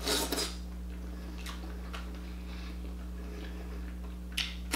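Mouth sounds of eating king crab meat: a wet slurping bite at the start, then chewing with soft mouth clicks, and a sharp smack near the end, over a steady low hum.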